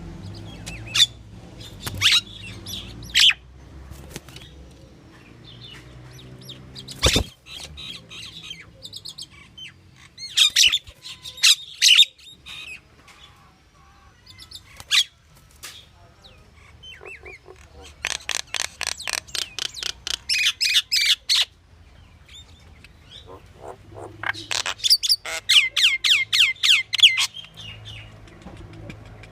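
Pied myna calling: scattered harsh squawks and chirps, then two runs of rapid repeated notes, about six a second, each lasting roughly three seconds, near the middle and toward the end. A single sharp click sounds about seven seconds in.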